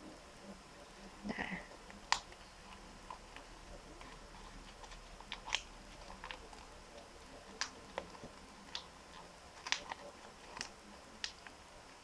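Origami paper crinkling and crackling as fingers press and crease the edges of a folded paper hat: a dozen or so sharp, irregular crackles.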